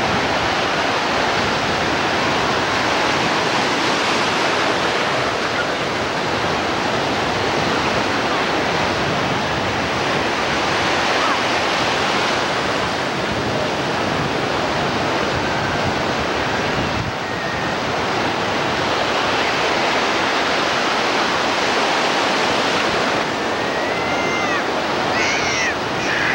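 Ocean surf breaking and washing in the shallows, a steady rushing of waves. Near the end come a few short high-pitched cries.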